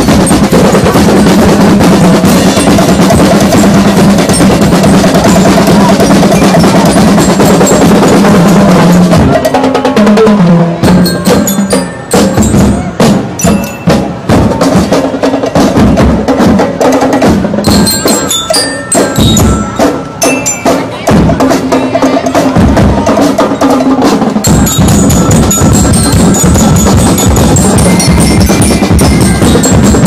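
School drum and lyre band playing: snare, tenor and bass drums with bell lyres ringing over them. A continuous beat for the first nine seconds or so, then a stretch of separate, spaced drum strokes, and full playing again from about 24 seconds in.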